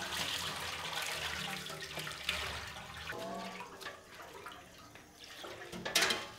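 Water pouring and splashing, fading away about halfway through.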